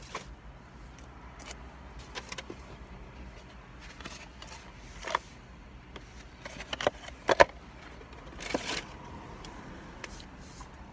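Sparse small clicks and rustles, the loudest a sharp pair of clicks about seven seconds in, then a brief rustle.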